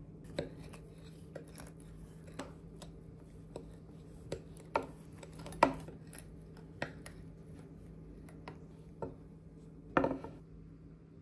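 Kitchen utensils and dishware knocking and clinking in irregular light taps. The loudest knocks come about halfway through and near the end, over a faint steady hum.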